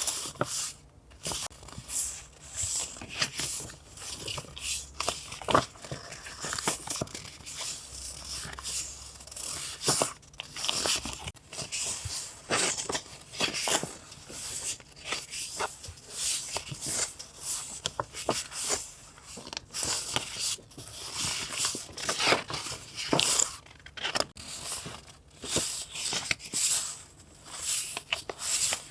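Paper being handled at close range, rustling and crinkling with some tearing, in quick irregular strokes.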